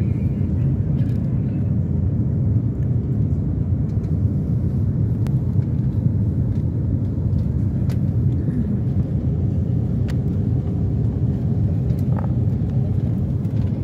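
Steady low rumble of jet airliner cabin noise, engines and rushing air, heard inside the cabin during the descent, with a few faint clicks.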